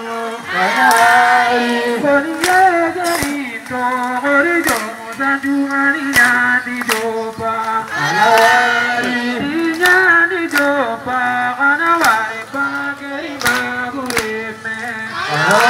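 Voices singing a chant-like song, with a sharp clap keeping time about every three-quarters of a second.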